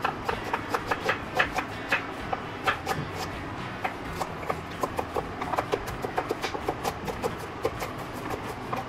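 Kitchen knife chopping onion on a wooden cutting board: rapid, uneven taps of the blade on the board, several a second.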